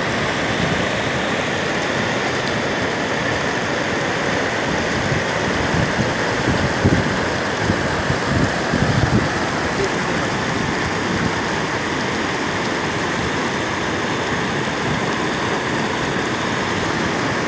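Muddy floodwater pouring over an eroded bank and ledge into a churning channel, a steady loud rushing of water. A few low thumps come in the middle.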